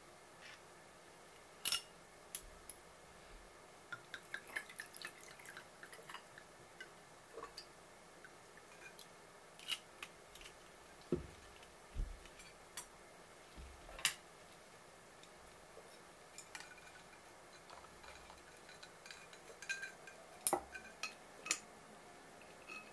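Scattered light clinks and taps of glass, ice and tableware on a wooden counter, with a couple of dull knocks around the middle.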